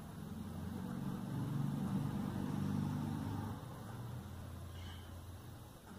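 A low mechanical rumble that swells about a second in and fades again after three to four seconds.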